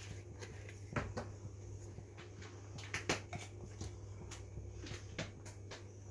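Scattered light clicks and knocks from spice jars being handled at the stove while dried herbs are added to the pot, over a steady low hum.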